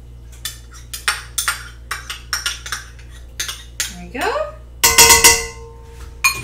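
A spoon tapping and scraping crushed garlic out of a jar into a stainless steel pot: a run of quick clinks, then about five seconds in a loud clang as the pot rings and fades.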